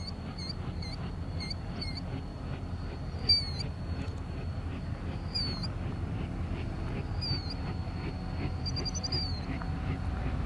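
Birds chirping in short repeated calls, with a few longer calls every couple of seconds, over a steady high-pitched drone and a low rumble.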